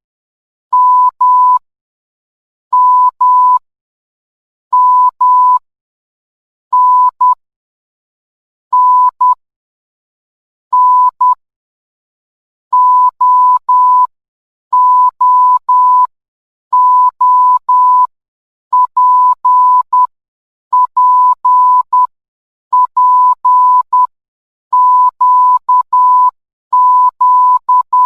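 Morse code beeps: a single steady pitch keyed on and off in short and long pulses. The pulses come in groups of one to four, one letter about every two seconds.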